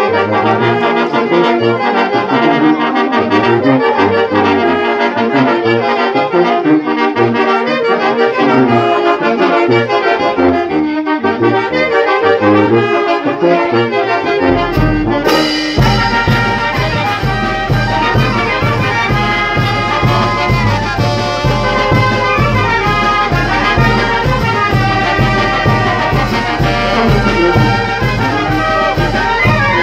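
Brass band playing dance music, with trumpets and trombones carrying the melody over a regular bass. About halfway through the sound abruptly turns fuller, with heavier bass and a steady beat of sharp percussion strokes.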